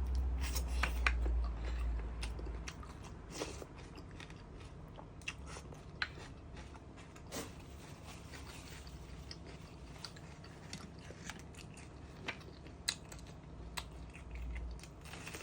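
Close-miked mukbang eating: chewing with scattered wet mouth clicks and crunches, and a low rumble in the first few seconds.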